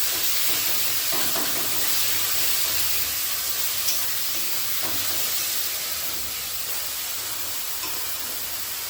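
Grated chicken and onions sizzling in hot oil in a kadai, a steady frying hiss that eases slightly toward the end, with a few faint clicks.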